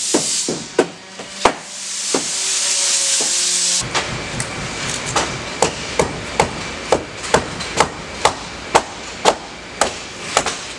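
Mallet striking wedges driven in around the edge of a fiberglass boat mold, to pop the cured cap out. First a steady hiss, likely the air blown in under the part, with a few taps; then, from about four seconds in, a rapid run of sharp strikes at about two to three a second.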